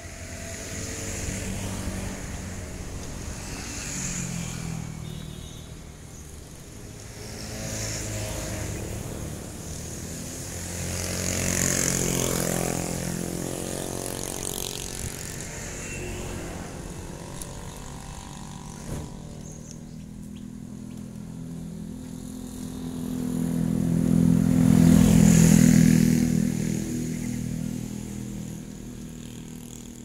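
Engines of several passing vehicles, each swelling and fading away one after another. The loudest passes about 25 seconds in.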